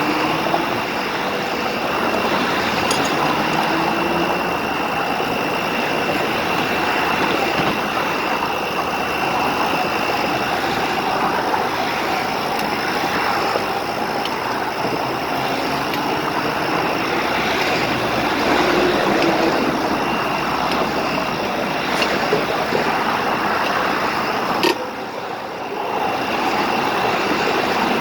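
Steady stream of interstate traffic passing, with a constant high thin whine running under it. A click comes about three-quarters of the way through, followed by a brief drop in the noise.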